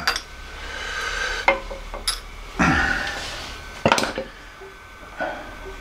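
A screwdriver clinking and scraping against the metal gearbox parts of a horizontal metal-cutting bandsaw. There are sharp metallic clinks about one and a half, two and four seconds in, with a short scrape between them.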